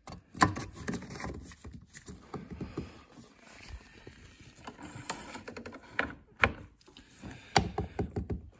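Plastic clicks and knocks from a Porsche Boxster's oil filler cap being twisted shut and its long dipstick being pushed back down the tube, with a few sharper taps around the middle and near the end.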